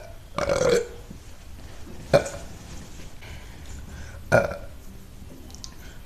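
A woman burping three times: a longer burp about half a second in, then two short, sharp burps about two and four seconds in.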